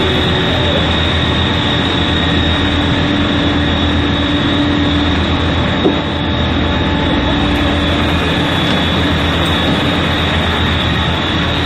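Loud, steady mechanical drone of firefighting at a still-burning fire, with a constant low hum and a high whine under it. A single sharp click about six seconds in.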